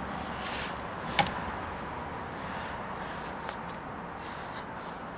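Faint handling noises as a twisted wad of cotton is worked into the end of a plastic pipe, with one sharp click about a second in.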